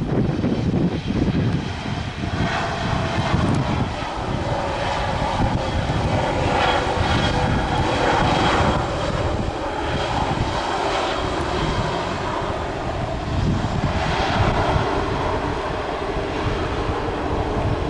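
An airliner's engines passing, a steady whine that slowly drops in pitch, with the roar swelling twice, over heavy wind buffeting on the microphone.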